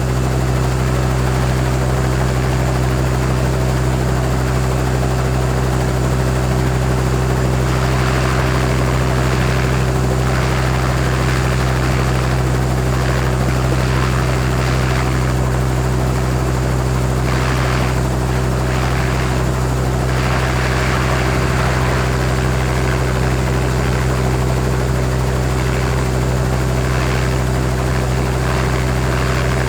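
Helicopter idling on the ground, a steady engine and rotor drone with strong low, even tones, its higher rushing noise swelling a little now and then.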